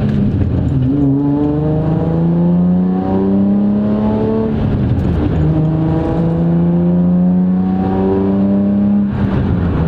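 Infiniti G35's 3.5-litre V6 through its aftermarket Z1 exhaust while driving, the note climbing as the car accelerates, dropping back about halfway through, then climbing again.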